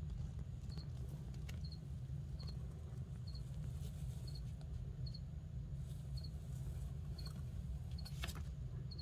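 A cricket chirping steadily in short double chirps about once a second, over a low steady hum, with two faint ticks.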